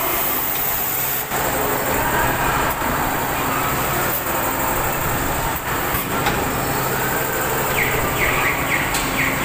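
Amusement swing ride in motion: a steady loud rumble of ride machinery and rushing air, with a few short high-pitched sounds near the end.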